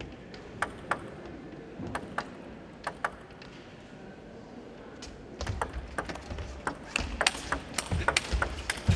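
Table tennis ball clicks: a few scattered bounces in the first three seconds while the server gets ready, then a fast rally from about five seconds in, the ball clicking quickly off bats and table with low thuds underneath.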